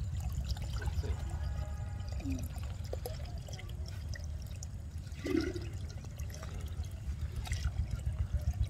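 Steady rush of water flowing and pouring through a village fishing channel, with a heavy low rumble.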